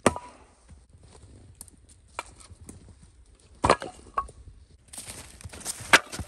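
Council Tool Hudson Bay axe chopping into a firewood round with one sharp, loud chop. A few fainter wooden knocks and clacks follow, the last two near the end.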